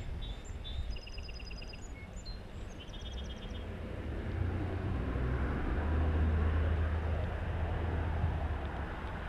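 A small bird sings a few short chirps and trills in the first three seconds. Then a road vehicle passes, a low rumble that builds from about four seconds in, is loudest around six to seven seconds, and eases off near the end.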